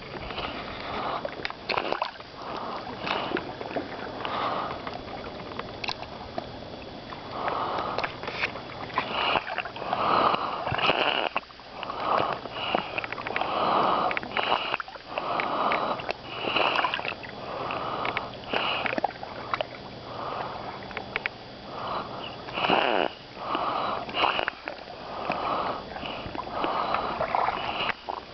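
A beach stone making a snoring sound as the waves wash around it: a run of short, uneven raspy rushes, roughly one a second, with sloshing water.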